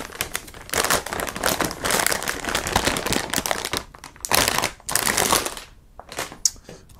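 Metallized anti-static shielding bag crinkling and rustling as a graphics card is pulled out of it. The crinkling stops about five and a half seconds in, followed by a few light handling clicks.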